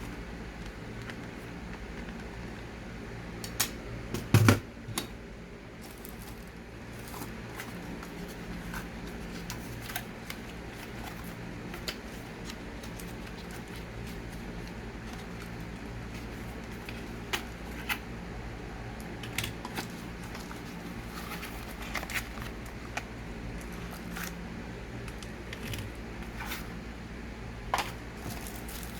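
Scattered clicks and light rustles from handling the packaging and parts of a wireless keyboard-and-mouse set, over a steady low hum, with a louder knock about four seconds in.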